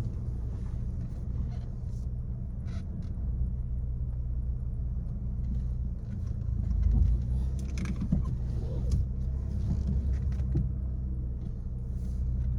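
Car engine and road rumble heard from inside the cabin, steady and low, swelling briefly about seven seconds in.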